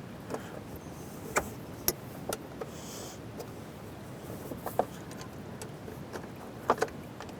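Scattered metallic clicks and clinks of a socket wrench working the rusty bolts of an RV holding-tank gate valve, with a sharper double click near the end. A brief hiss comes about three seconds in.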